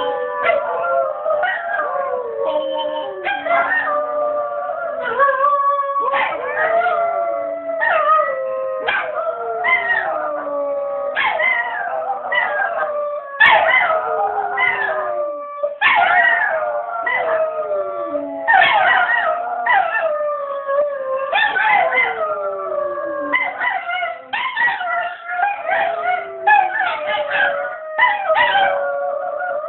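Several dogs howling together in a continuous chorus, their long howls overlapping at different pitches and mostly sliding down at the end of each note.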